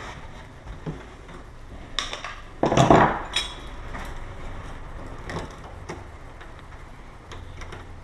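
Scattered clicks and knocks of metal lock parts being handled and fitted into a wooden door, with the loudest knock and scrape about three seconds in.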